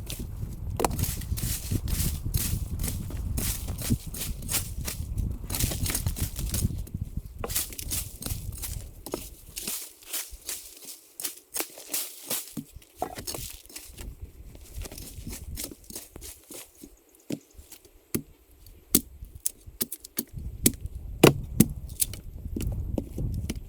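Dry forest-floor litter, leaves and twigs, rustling and crackling as it is stepped on and disturbed: a dense run of irregular crackles, thinning in the middle, then a few sharper single snaps near the end.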